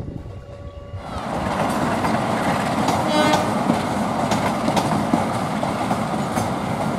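Diesel-hauled express passenger train passing close at speed: a steady rumble of wheels on rail with clicks over the rail joints, starting about a second in. A brief high-pitched tone comes about three seconds in.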